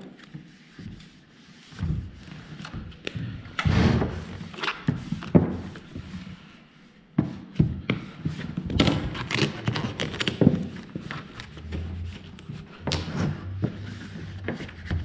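Irregular thumps, knocks and rustling from vinyl graphic panels being handled, laid and trimmed on a race car body.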